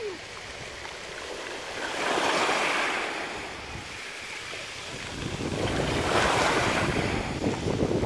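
Small waves breaking and washing up a pebble beach, swelling twice, about two and six seconds in. Wind rumbles on the microphone in the second half.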